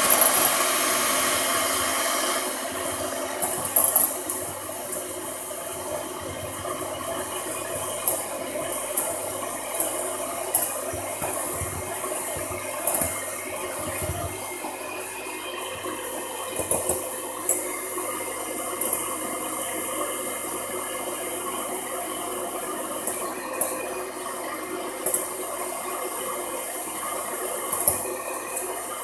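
Electric hand mixer running steadily, its twin beaters whipping eggs and sugar in a glass bowl, with occasional sharp clicks. The motor gets a little quieter about two seconds in.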